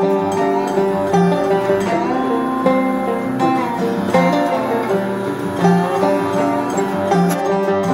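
Instrumental background music of picked acoustic strings, guitar and banjo, in a bluegrass-country style.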